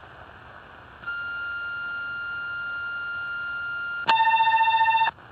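Railway radio channel on 2130 kHz from a Tecsun PL-660 shortwave receiver: receiver hiss, then about a second in a steady high call tone for about three seconds, followed by a louder, lower tone for about a second that cuts off suddenly. These are the channel's signalling tones ahead of voice traffic.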